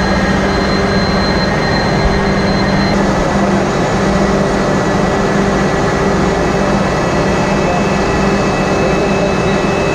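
Loud, steady engine-room machinery noise from a running Wärtsilä RT-flex82T seven-cylinder two-stroke low-speed diesel main engine, with a constant low hum.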